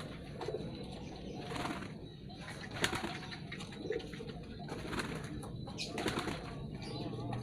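Pigeon wings flapping in several short bursts.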